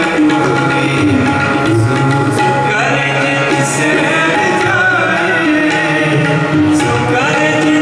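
Sikh kirtan: tabla playing under sustained held notes, with a singing voice rising and falling over them.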